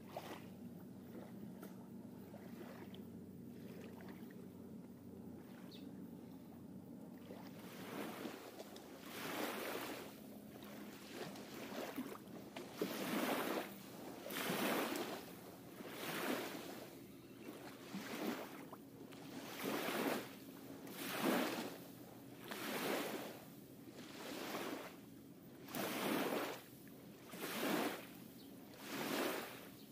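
Damp feeder groundbait being mixed and kneaded by hand in a bucket. After a quiet start, a rhythmic swishing rustle comes from about eight seconds in, roughly once every second and a half.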